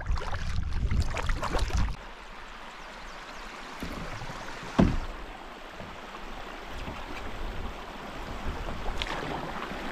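Canoe being paddled along a slow creek: water swishing and trickling around the paddle and hull, louder for the first two seconds, with a single sharp knock about five seconds in.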